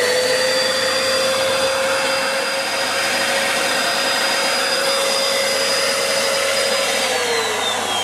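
Bissell PowerForce Helix upright vacuum cleaner's motor running at a steady whine, then switched off about seven seconds in, its pitch falling as it spins down. The motor runs but the brush roll is not turning.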